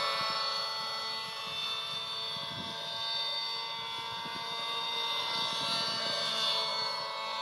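Glow-fuel engine of a radio-controlled model helicopter running with a steady high whine, its pitch wavering slightly.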